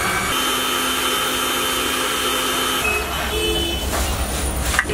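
Countertop electric blender's motor running at a steady pitch while blending a milkshake, stopping about three seconds in. A knock near the end.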